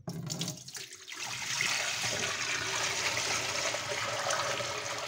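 A bucket of water poured in a steady stream into a stainless-steel kitchen sink, splashing on the steel and swirling into the drain, which takes it freely. The pour starts right away and grows fuller and louder after about a second and a half.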